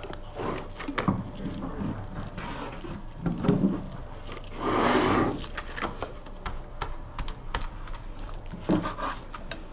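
Hand work laying up fibreglass: a brush working resin into glass mat over timber, with scattered clicks and taps from the brush and resin pot, and a louder rasping scrape about five seconds in.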